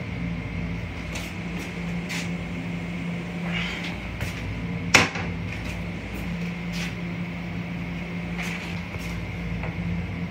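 Plastic toilet lid being lifted, with one sharp clack about five seconds in as it goes back and a few fainter clicks. Under it runs the steady hum and rumble of the M7 railcar.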